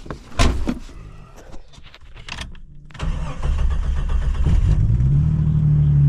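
Jeep XJ Cherokee engine starting: a few knocks and clicks, then from about halfway in the engine cranks and catches, running rough for a moment before settling into a steady fast idle.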